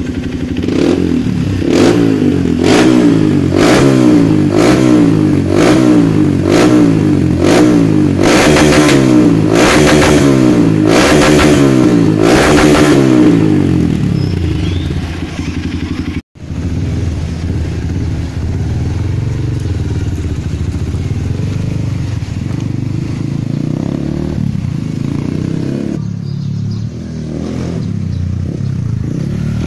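Honda CRF150L's single-cylinder four-stroke engine through a Nurifumi RV-1 racing exhaust, revved over and over in quick throttle blips, a little more than one a second, for about fourteen seconds, then falling back to idle. After a sudden cut, a motorcycle engine runs more steadily.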